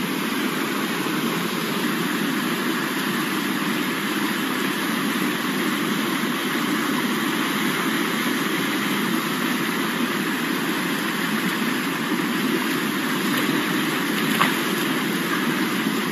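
Swollen, fast-flowing river rushing over rapids: a steady, even rush of water. A single brief tap about fourteen seconds in.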